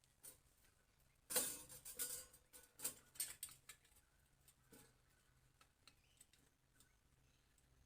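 A quick run of light clicks and clatter from tools and parts being handled during engine assembly, starting about a second in, then a few faint isolated ticks.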